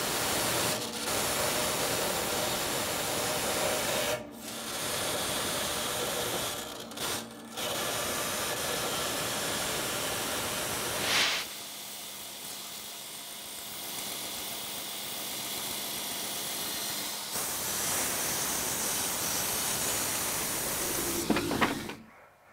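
Shop machines working sheet metal: a metal-cutting bandsaw running through a sheet-metal blank, then a sander grinding the sheet's edge. Steady machine noise, broken by a few short gaps.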